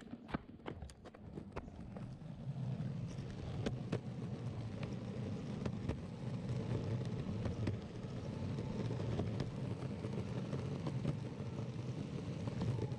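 Electric longboard's wheels rolling over rough pavement: a few sharp clicks at first, then a steady low rumble that builds about two seconds in.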